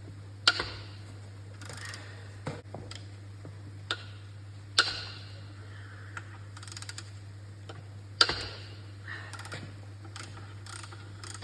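Metal hand tools working on a Ford GPW engine block while the main bearing cap bolts are undone: three sharp, ringing metal clanks about four seconds apart, with lighter ticks and short runs of clicks between.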